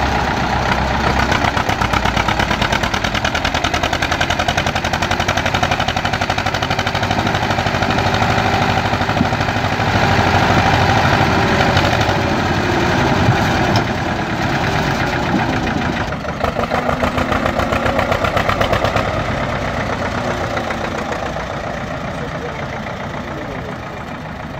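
Tractor engine running with a rapid, steady chugging, easing off slightly in the last few seconds.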